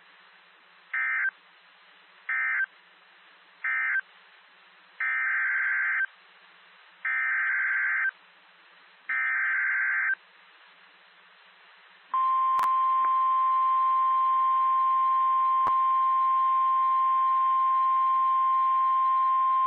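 NOAA Weather Radio Emergency Alert System signalling over a hiss of radio static. First come three short buzzy data bursts, the end-of-message code closing the previous warning. Then come three longer buzzy bursts of about a second each, the SAME header of the next warning. About twelve seconds in, the steady 1050 Hz weather radio warning alarm tone starts and holds.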